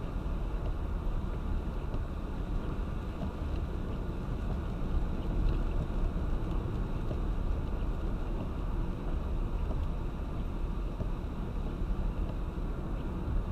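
Car driving in heavy rain: a steady low road and tyre rumble with a hiss of rain over it.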